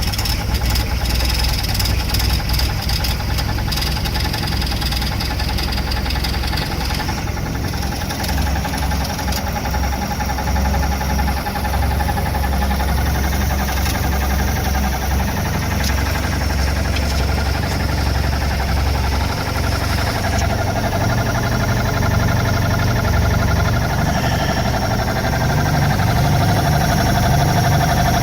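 MerCruiser 140 four-cylinder sterndrive engine running steadily with a whine that comes from the bellhousing at the back of the engine, not from the fan belt. The owner suspects a dragging starter or a worn gimbal bearing. The engine note rises a little after about 24 seconds.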